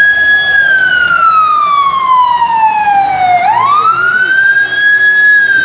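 Emergency vehicle siren wailing in a slow cycle. Its pitch falls gradually for about three seconds, sweeps quickly back up, holds briefly, then starts falling again near the end.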